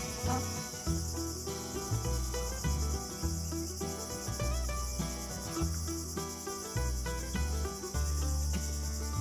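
Background music with a bass line changing every second or so and a melody above it, over a continuous high-pitched insect chorus.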